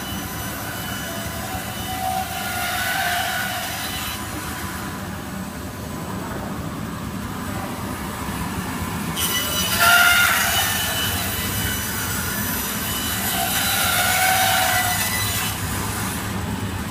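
CNC band saw running and cutting wood in two spells, each with a hiss and a wavering whine. The first spell ends about four seconds in and the second runs from about nine to fifteen seconds. Only the machine's steady hum fills the gap between them.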